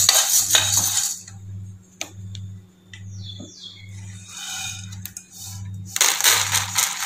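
Roasted toor dal and chana dal stirred with a spatula in a dry aluminium kadai, a scraping rattle of the lentils on the metal that stops about a second in; a few clicks follow as the pan is handled. Near the end the dal, roasted light golden and done, is poured out of the pan with a loud rattling pour.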